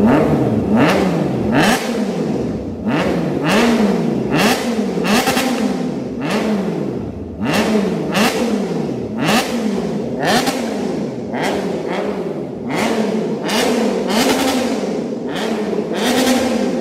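Triumph Trident 660's three-cylinder engine, breathing through an aftermarket full exhaust system, revved in quick repeated throttle blips. The pitch climbs and drops again about three times every two seconds, over and over.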